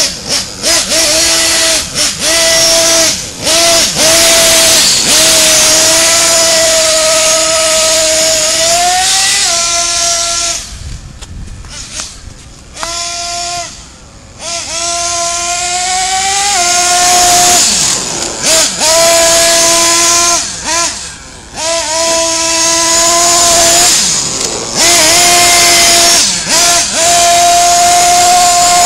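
Small two-stroke glow-fuel engine (O.S. .21) of a Traxxas T-Maxx nitro RC truck running at high revs, its high-pitched note rising and falling and dropping off sharply again and again as the throttle is worked. It fades for a few seconds midway as the truck drives far off, then comes back loud.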